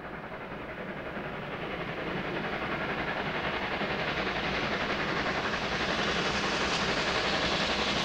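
Steam locomotive approaching with its train, its exhaust beats and running noise growing steadily louder as it draws near.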